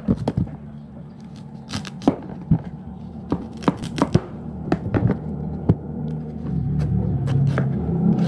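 Hand peeler scraping the skin off purple sweet potatoes: short, irregular scrapes and clicks of blade on tuber and board, over a steady low hum that grows louder in the second half.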